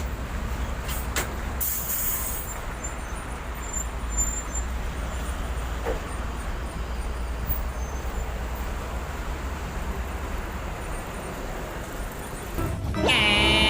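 Heavy vehicle engine running with a steady low rumble, with a short air-brake hiss about two seconds in. Near the end a louder sound with several wavering tones starts.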